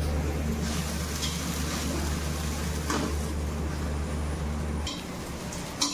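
Eggs frying in a kadai on a gas stove, a faint steady sizzle with a few light clicks. Under it runs a steady low electrical hum that cuts off about five seconds in.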